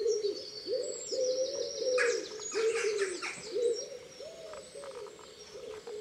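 Dawn chorus: a songbird, which the uploader takes for a nightingale, sings fast high trills and phrases over a continuous run of low cooing notes repeated two or three times a second. The high song fades out after about three and a half seconds, while the cooing goes on more quietly.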